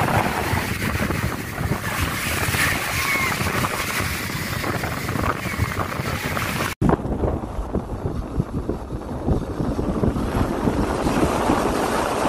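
Wind buffeting the microphone over waves washing in the shallows, a steady rough rush that cuts out for an instant about seven seconds in.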